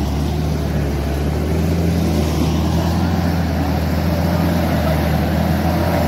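Four-wheel-drive SUV engines running steadily under load while a tow strap pulls a Toyota Land Cruiser 80 out of deep mud.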